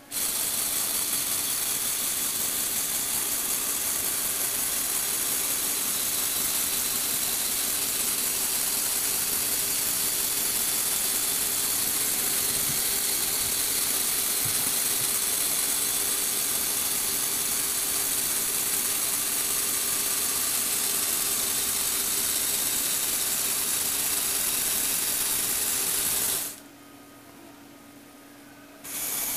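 Lego Technic electric motor and plastic gear train running steadily as they turn and tilt a display stand: a continuous gear noise with a steady hum and a high hiss. It stops about 26 seconds in and starts up again near the end.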